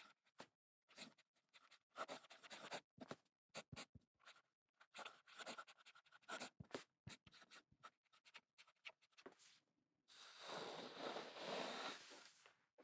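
An 18K gold medium fountain pen nib (Cross Townsend) scratching faintly across notepad paper as words are written, in short irregular strokes. Near the end there is a longer continuous scratch.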